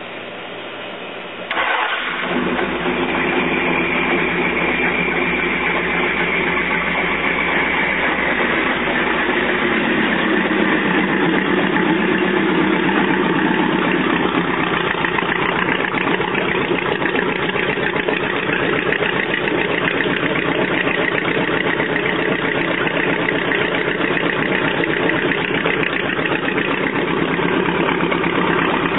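Jet boat's inboard V8 engine starting up: it catches about a second and a half in, then idles steadily.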